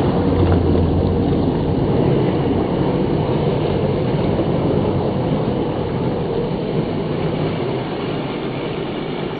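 1/10 scale RC off-road truck running over rough ground, its electric motor and geared axles grinding and its tyres crunching, played back at half speed so the whole sound is deep and rumbling. The level eases off slightly toward the end.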